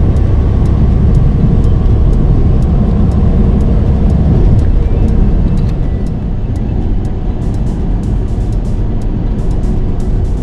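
Semi-truck running at highway speed: a steady, loud low rumble of engine and road noise that eases a little about six seconds in, with scattered light clicks.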